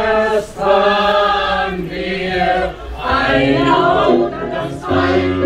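Vocal music: singing voices holding long, wavering notes in a choir-like sound, with shorter stepping notes coming in near the end.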